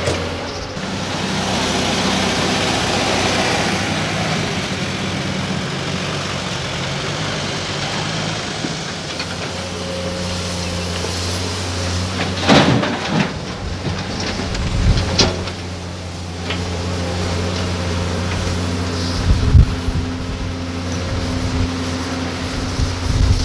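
Doosan crawler excavator's diesel engine running steadily while it digs and loads a dump truck. Earth and rock hit the truck's bed with loud thumps and rattles about halfway through, and again a few more times later.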